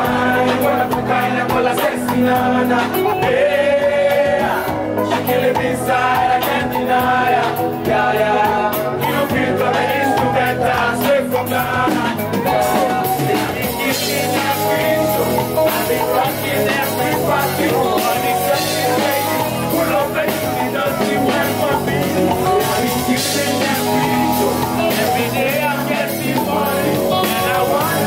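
Music: a hiplife song with a male voice singing and rapping over a steady beat.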